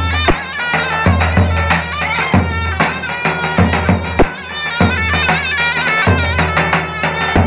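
Turkish davul bass drum beaten in a dance rhythm, a deep stroke about every second and a quarter with lighter taps between, under a shrill reed pipe playing a wavering, ornamented folk melody.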